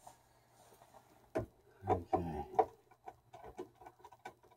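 Workshop handling noises: a sharp click about a second and a half in, then a knock, followed by a run of light ticks and rattles as tools and parts are handled.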